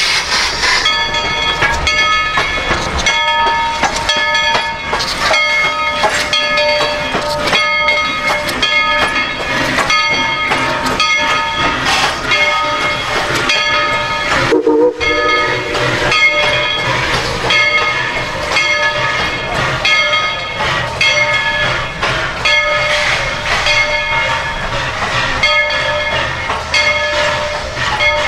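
Narrow-gauge train rolling close by: steel wheels clacking in a steady run over rail joints, with a continuous metallic ringing squeal. There is a brief break about halfway through.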